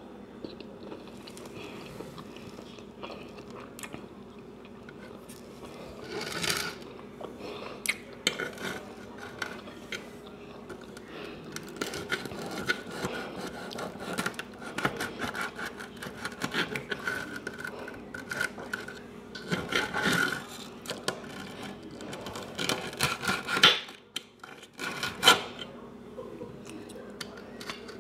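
Knife and fork cutting through a breaded country fried steak, sawing and scraping with scattered clicks of metal on the dish, loudest in a few sharp clicks near the end. A faint steady hum lies underneath.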